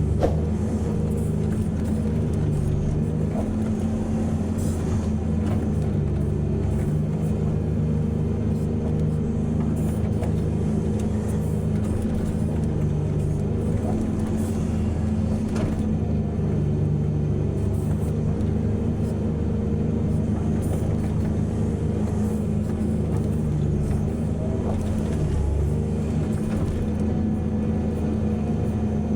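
Heavy diesel engine of mining machinery running under load, its pitch shifting a little every few seconds as the work goes on, with scattered short knocks.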